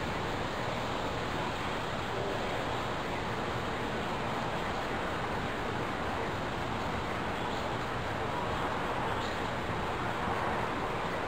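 Steady rushing noise of thunderstorm wind and rain, holding an even level with no thunder.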